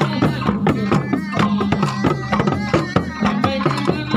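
Traditional Sundanese procession music: several large single-headed wooden hand drums, carried by marching players, beat a fast, steady, interlocking rhythm with pitched low drum tones.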